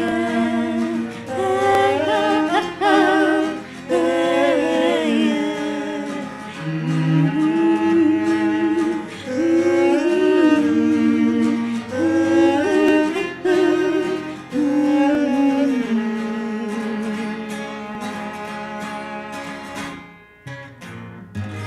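Live acoustic folk music: a slow, wordless melody with vibrato over steady accompanying chords, winding down and ending about twenty seconds in.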